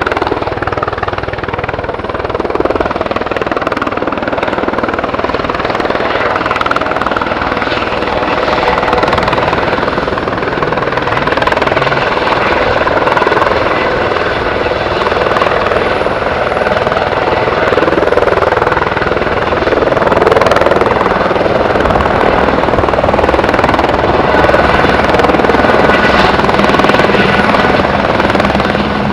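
Helicopter running close by: a steady rush of turbine and rotor noise with a faint high whine, holding level throughout.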